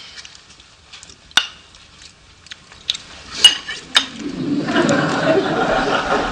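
Forks clicking and scraping on plates and takeout containers, a few separate sharp clinks during a silent meal. About two-thirds of the way in, a steady swell of studio audience noise rises and holds.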